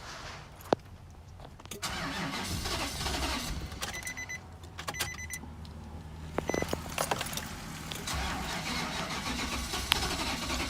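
2005 Nissan Titan's V8 cranking on the starter without catching, a no-start of the kind the owner blames on fuel not reaching the engine. A few sharp clicks come early on, and a warning chime beeps in short pulses midway.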